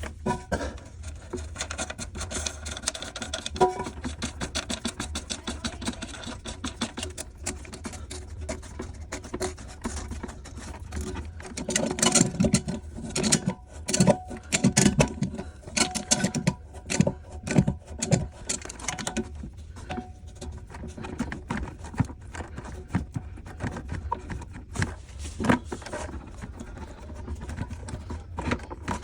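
Irregular clicks, taps and knocks of toilet tank parts being handled during a fill valve replacement, busiest around the middle, over a steady low hum.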